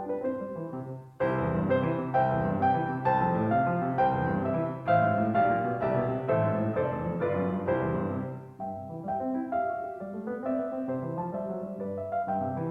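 Background piano music: soft, fuller from about a second in, easing off again past the middle.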